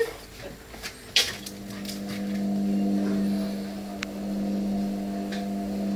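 A steady machine hum at an unchanging pitch sets in about a second in and keeps running, growing a little louder, with a sharp click just as it starts.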